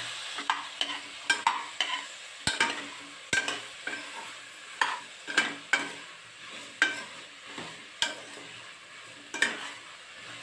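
A metal ladle stirring and scraping chopped brinjal and onions sautéing in a metal pressure-cooker pan, with irregular clinks of metal on metal, about one or two a second and sparser toward the end, over a light sizzle.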